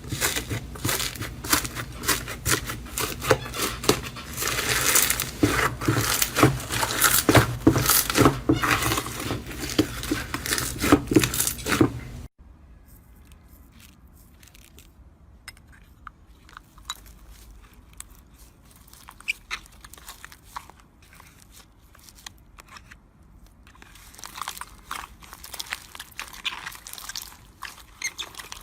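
Slime being squeezed and poked by hand: a dense run of sticky, crackling clicks. About twelve seconds in it cuts to a much quieter stretch with sparse, faint crackles, which grows busier again near the end.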